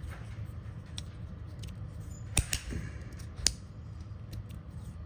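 Magnetic fidget slider with G10 and micarta plates being worked by hand, its plates snapping together on the magnets in a few sharp clicks: two close together, then one more about a second later, with fainter ticks before them.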